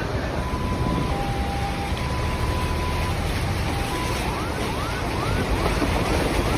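Steady loud rushing noise of floodwater. A faint tone switches between two pitches about once a second for the first four seconds, then short rising whistles repeat about twice a second.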